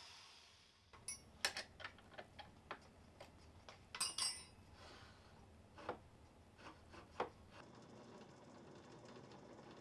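Scattered light metallic clicks and knocks as the tailstock is handled and shifted by hand on the metal lathe's bed, the loudest about a second and a half in and again about four seconds in.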